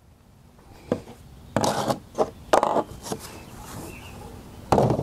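A few short knocks and clatters from a Ryobi 40V chainsaw body and its loose bar and chain being handled on a plastic folding table: one click about a second in, a cluster around the middle, and another knock near the end.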